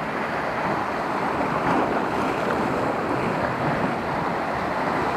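Sea surf washing steadily against the shore rocks, a continuous rushing noise with no single breaker standing out.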